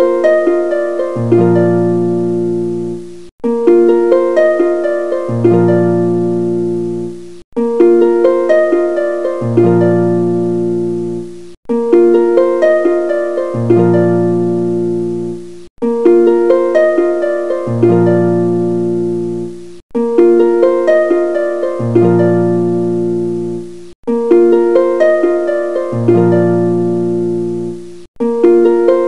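Background music: a gentle harp-like plucked melody over a low bass note, looping every four seconds or so with a brief gap between repeats.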